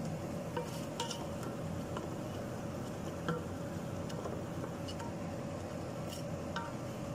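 A utensil clinks and scrapes lightly against a cooking pan at irregular short intervals while the dry rice and browned rice noodles are being mixed, over a steady low hum.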